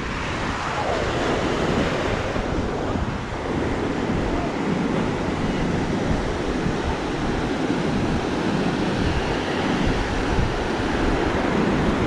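Sea surf breaking and washing up the beach in a steady rush, with wind buffeting the microphone.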